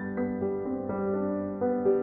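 Soft background piano music, a slow run of held notes.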